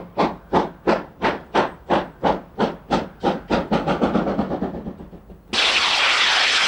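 Steam locomotive exhaust beating about three times a second, the beats quickening and running together as the driving wheels begin to slip, then dying away as the driver closes the regulator. About five and a half seconds in, the safety valves lift with a loud, steady hiss of steam as boiler pressure rises.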